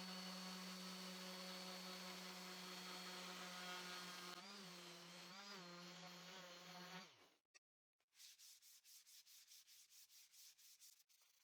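Random orbital sander with 180-grit paper running with a steady whine, its pitch wobbling twice, then switching off about seven seconds in. Hand sanding follows: sandpaper rubbed back and forth over wood in quick strokes, about five a second.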